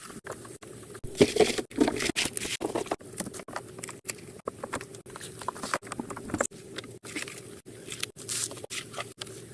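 Crackling, rustling and scraping of branches and leaves being handled, with sharp snaps and clicks, chopped up by frequent abrupt cuts.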